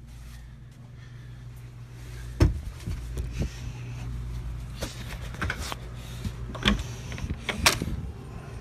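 Handling noise as a pillowcase with a trapped animal inside is gripped shut and carried out through a door. A series of sharp knocks and clicks, the loudest about two and a half seconds in and shortly before the end, over a steady low hum.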